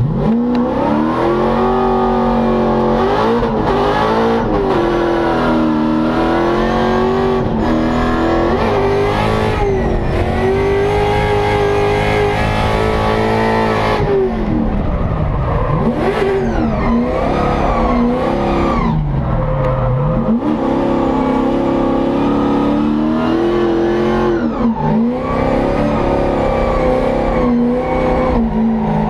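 Toyota GT86 drift car with an LS V8 swap, heard from inside the cabin, driven flat out. The V8 runs at high revs, held fairly steady for about the first fourteen seconds. After that the revs drop and climb again several times as the car is worked through the corners.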